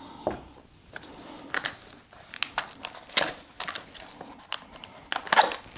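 A small cardboard box being opened by hand: scattered short scrapes and crinkles of cardboard and packaging, with a few sharper ones about three seconds in and near the end.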